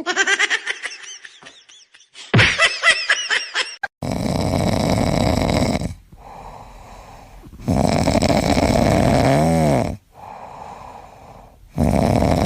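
An animal snoring: loud, rasping breaths about two seconds long, coming roughly every four seconds, with quieter breaths between. Before the snoring starts, a quick run of high, squeaky, rising-and-falling sounds.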